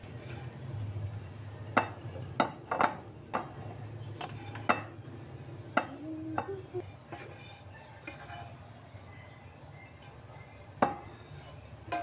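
Spatula scraping and knocking against a frying pan as cooked food is emptied into a bowl: a run of sharp clacks in the first seven seconds and one more near the end, over a steady low hum.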